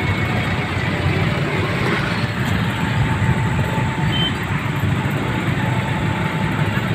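Busy street traffic of motorcycles and cars: a steady mix of small engines running as riders wait at and roll across a railway level crossing.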